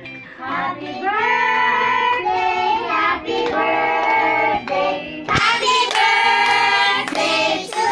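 Several children singing a song together, with a short break a little after five seconds.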